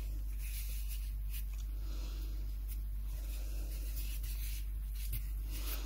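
Faint rustling and rubbing of waxed polyester macrame cord as fingers pull and work double half-hitch knots, with scattered small scratchy touches over a steady low hum.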